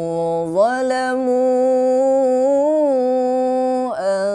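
A man's voice reciting the Qur'an in melodic tilawah style, drawing out one long ornamented note. The pitch steps up about half a second in and is then held with a slight waver. It dips briefly about four seconds in before the chant carries on.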